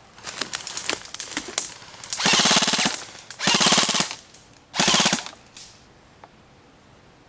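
Airsoft gun firing three short full-auto bursts in quick succession, each under a second long, preceded by a few faint clicks and rustles.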